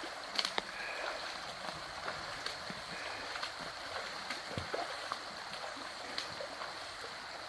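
River rushing steadily over rocks, with a few short splashes and knocks from someone wading through it.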